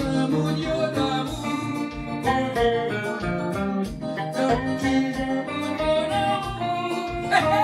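Electric guitar playing a picked melodic line over a steady beat, with a man singing into a microphone.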